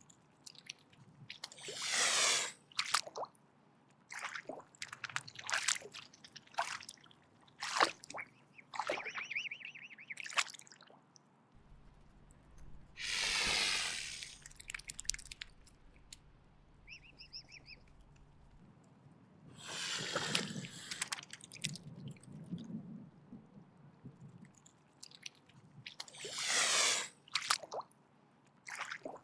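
Mute swan hissing in four long, breathy hisses a few seconds apart, with short clicks in between.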